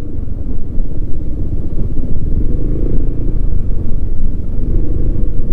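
Motorcycle running over a rough, unpaved road: a steady, loud, low engine and road rumble.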